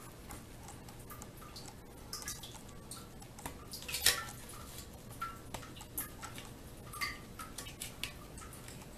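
Water dripping into the shallow pool left in the bottom of a partly drained steel wood-boiler water jacket: irregular short plinks that ring briefly in the metal box, a few a second, the loudest about four seconds in.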